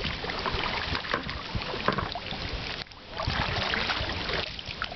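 Double-bladed kayak paddles dipping into canal water with irregular splashes and sloshing around plastic-bottle kayaks, with a brief lull just before three seconds in.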